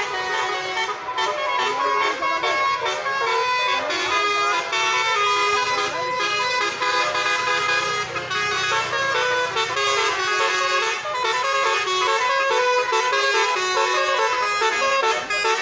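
Indonesian bus 'telolet' musical horn playing a running melody, several horn tones sounding together and stepping from note to note, with only brief breaks.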